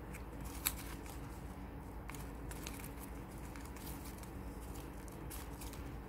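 Satin ribbon rustling softly as hands pull and weave it tight, with scattered small clicks and crinkles, the sharpest about two-thirds of a second in.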